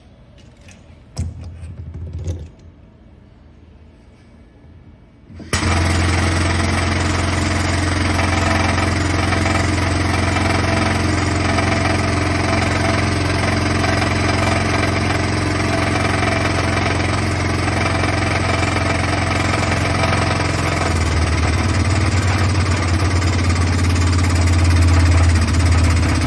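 Finn-Power P16 AP air-fed hose crimping press starting up about five seconds in and running steadily with a strong low hum while it crimps a hose; the hum deepens near the end as the press works toward the set crimp value.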